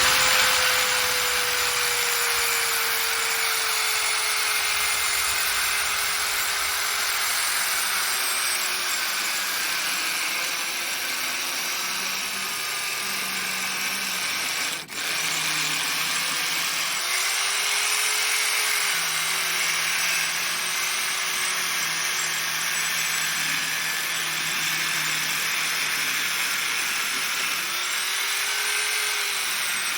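Electric circular saw ripping a copper-treated 2x4 lengthwise, running without a break. Its motor pitch sags slowly under the load of the cut and picks up again a few times, with one momentary dip in sound about halfway through.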